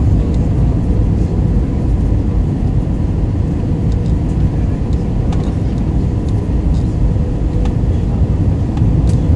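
Airbus A321 cabin noise on approach, heard from a window seat over the wing: a loud, steady low roar of the jet engines and airflow, with a faint steady hum above it.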